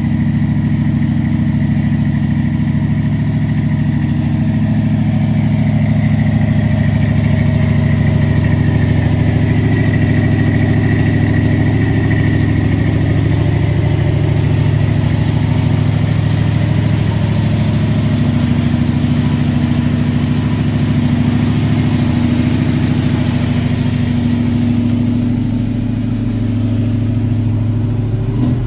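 Lifted pickup truck's engine idling steadily.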